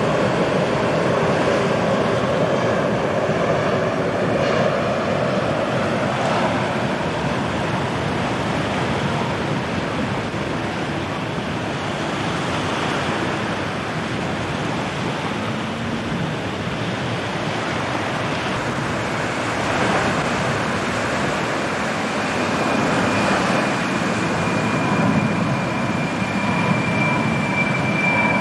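Jet engines of a four-engined Airbus A340 on low final approach, a steady rushing roar. A high engine whine builds near the end as the next airliner comes in.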